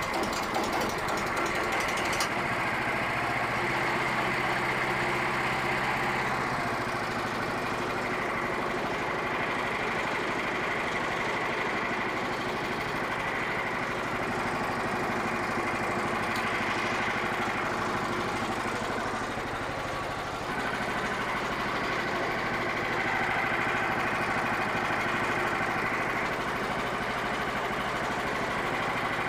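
Portable band sawmill's gasoline engine running steadily. Its tone shifts about six seconds in and again about twenty seconds in.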